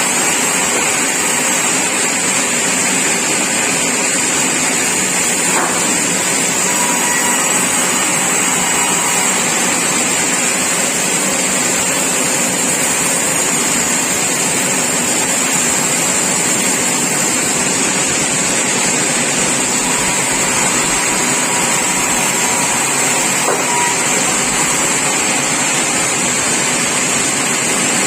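Sawmill machinery running steadily: a loud, constant mechanical noise with a high hiss and no break.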